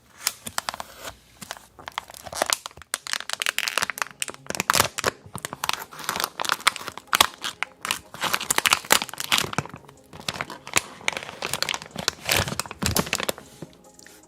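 Close-miked crinkling and crackling of plastic packaging being handled, dense and irregular throughout.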